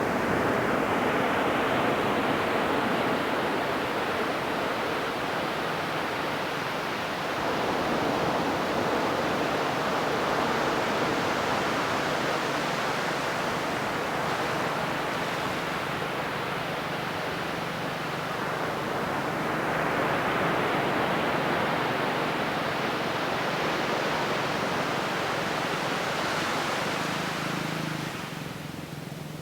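Ocean waves washing onto a beach: a continuous rushing wash that swells and ebbs as successive waves come in, easing off near the end.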